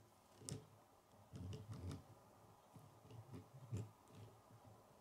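Faint scattered clicks and soft knocks of a plastic K'nex toy truck being handled and turned on a wooden table.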